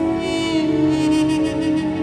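Background film score: a slow melody of long held notes over sustained chords.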